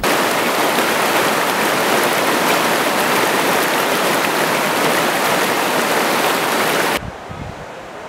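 Mountain stream rushing over rocks, a loud steady rush of water that cuts off abruptly about a second before the end, leaving a much quieter background.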